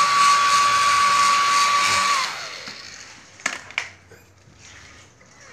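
Hair dryer blowing with a steady whine, switched off about two seconds in so that its motor spins down and fades; then two sharp clicks a third of a second apart.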